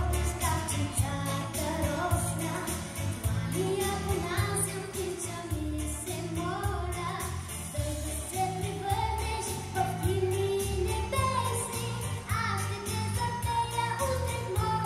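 Children's vocal group of young girls singing a song into microphones over backing music with a steady beat.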